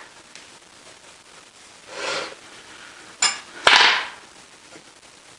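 Cast-iron and steel lathe tailstock parts being handled: a short scrape, then a sharp metallic clink with a brief high ring, followed closely by a louder clunk.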